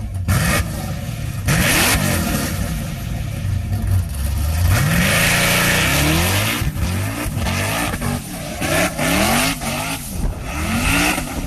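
Motor vehicle engine accelerating and revving hard, its pitch climbing in several repeated rising sweeps.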